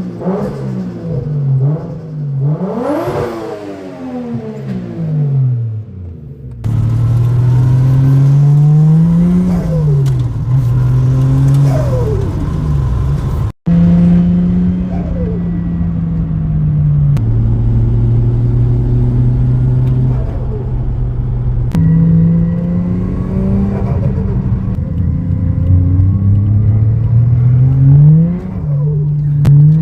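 Toyota 1JZ-GTE VVTi single-turbo straight-six engine revved up and down repeatedly, with turbo flutter as the throttle closes. The sound gets abruptly louder about six and a half seconds in, and there is a brief dropout near the middle.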